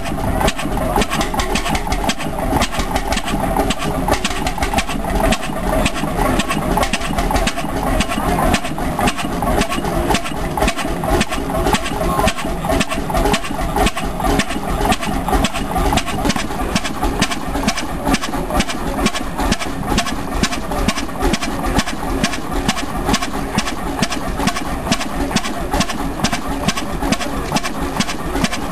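Kramper vertical single-cylinder stationary engine running steadily with an even, regular beat.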